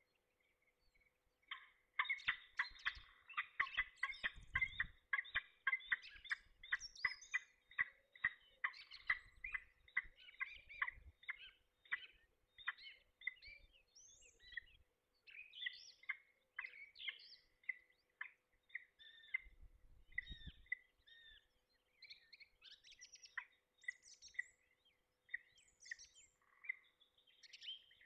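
Peregrine falcon calling at the nest: a rapid, chattering run of repeated calls that starts about two seconds in and thins into scattered calls later. These are courtship calls at the nest scrape, the male inviting the female to the scrape.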